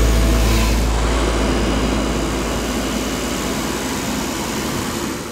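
Suzuki Jimny JA11's small three-cylinder engine idling, a steady low drone.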